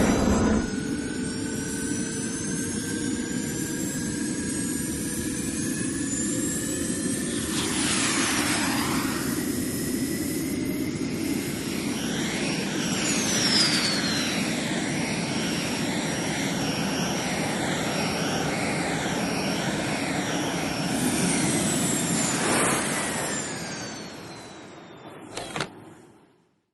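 Sci-fi jet pack sound effect: a steady rushing thrust with slowly rising whining tones, a whooshing sweep about eight seconds in and another near the end, then fading out with one brief burst just before it stops.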